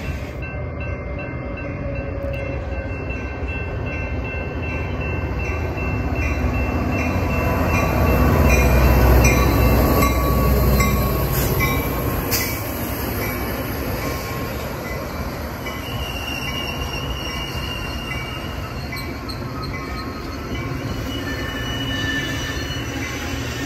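Metra commuter train passing close by: the diesel locomotive goes by with its engine rumble loudest about nine seconds in, followed by the stainless-steel bilevel cars rolling past on the rails. A high ring repeats evenly about twice a second through the first half, and brief high wheel squeals come later.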